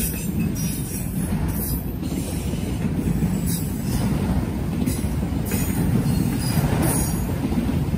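Norfolk Southern freight train rolling past: a steady low rumble of cars on the rails, with brief surges of high hiss coming and going.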